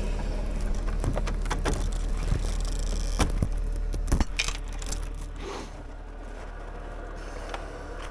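Steel chain rattling and clinking against its hook and the log stanchion as it is handled, with many sharp metallic clinks in the first half and fewer after. A steady low hum runs beneath and drops about two-thirds of the way through.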